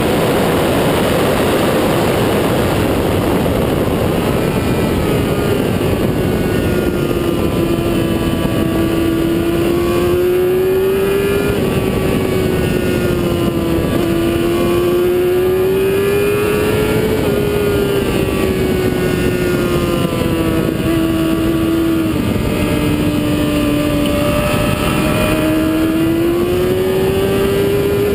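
Motorcycle engine at speed on a track lap, under heavy wind rush on the onboard camera's microphone. The engine note rises and falls through the corners, drops sharply about two-thirds of the way through and climbs again near the end.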